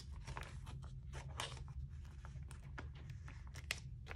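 Clear plastic binder sleeves crinkling and crackling as photocards are slid in and out of their pockets and the pages are handled: a quick, irregular run of small sharp crackles over a low steady hum.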